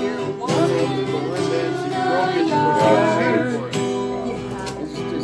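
Acoustic guitar strummed with voices singing along.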